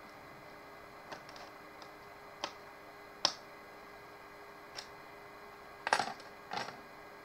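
Scattered light clicks and taps, about six in the first five seconds, then a short clatter of louder knocks about six seconds in, over a faint steady electrical hum.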